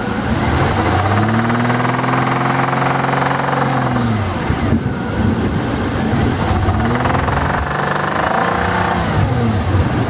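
2000 Jaguar XK8's 4.0-litre V8 running, revved up twice, each rev held about three seconds before falling back to idle. The buyer hears something abnormal in this engine noise, which the seller calls normal.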